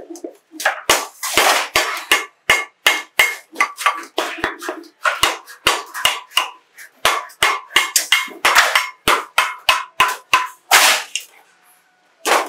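Hand shears cutting a galvanized steel sheet: a fast series of sharp metallic snips, about two or three a second, the sheet ringing between them, with a brief pause near the end.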